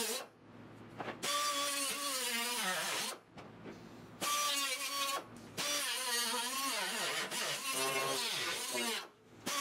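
Small hand-held cut-off tool with a thin cutting disc cutting into the rusted steel lip of a car's windshield frame, in three bursts of high whine whose pitch sags as the disc bites and recovers as it eases off.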